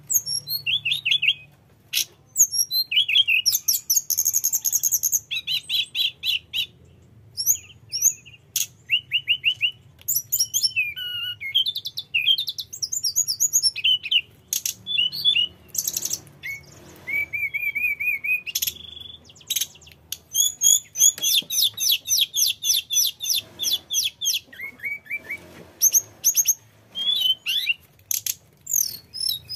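Hill blue flycatcher singing a long, nearly unbroken rolling song: fast trills and rapid runs of repeated notes mixed with whistled rising and falling glides and sharp chirps, broken by only short pauses.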